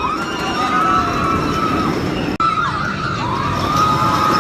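Roller coaster riders screaming, several held cries rising and falling over one another, over the rumble of the coaster train on its steel track. The sound cuts out abruptly about two and a half seconds in, then starts again.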